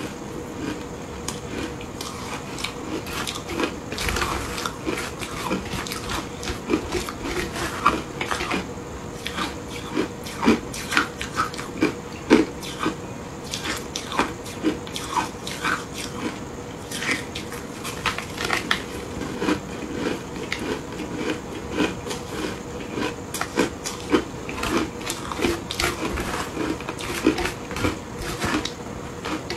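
Close-miked crunching and chewing of shaved ice coated in matcha and milk powder, a dense run of irregular crisp crunches as each mouthful is bitten and ground.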